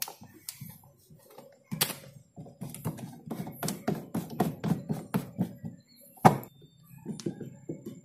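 Plastic drain-valve parts of a twin-tub washing machine being handled and pressed back into place: a quick run of clicks and knocks, ending in one sharp knock about six seconds in.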